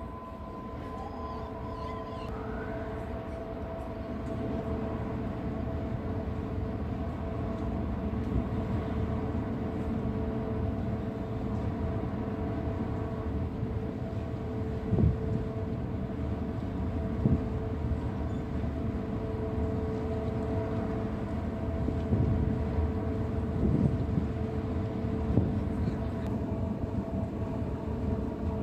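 Large cruise ship's machinery running as the ship gets under way: a steady low rumble with two steady hums that slowly grows louder. A few short thumps sound in the second half.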